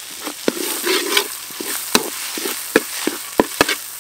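Metal spatula scraping and knocking against a metal wok as it stirs minced garlic and chili paste frying in oil, with a light sizzle underneath. The knocks come irregularly, about a dozen of them.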